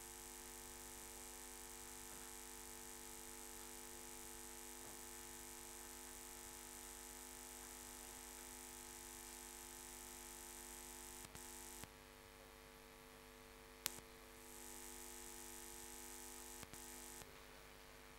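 Faint steady mains hum with hiss, broken by a few clicks, the sharpest about fourteen seconds in.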